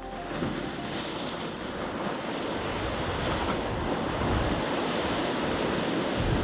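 Flash-flood water rushing down a streambed and pouring into a riverbed sinkhole in a steady roar, with wind buffeting the microphone.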